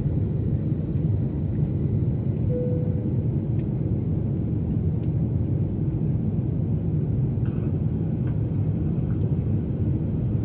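Steady low rumble of a jet airliner in flight: engine and airflow noise heard inside the passenger cabin.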